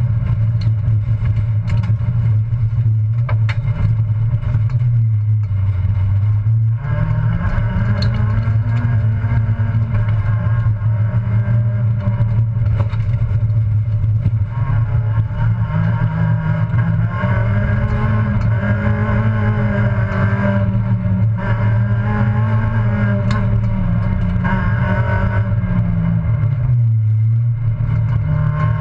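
Citroën Saxo race car's engine heard from inside the cabin, running hard at racing revs, its pitch rising and falling as it accelerates and lifts off. The pitch drops sharply about five seconds in and again near the end, and a few sharp ticks sound over it.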